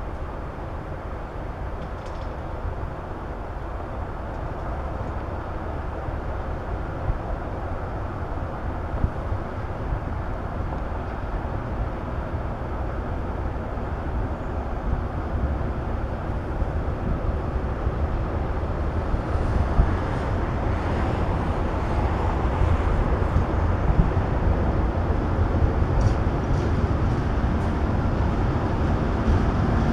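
ČKD-built ChME3 diesel shunting locomotive running, its diesel engine a deep steady rumble that grows gradually louder, with a few brief clicks in the last third.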